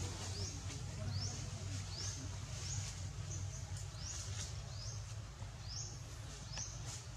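A high, short chirp, each one rising in pitch, repeated about once every half to one second, over a steady low hum.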